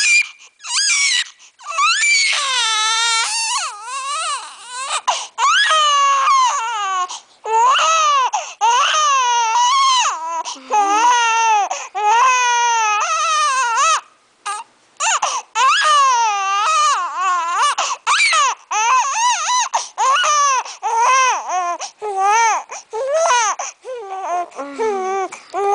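A seven-week-old baby crying: a string of high, wavering wails, each broken off by a quick breath, with a brief pause about halfway.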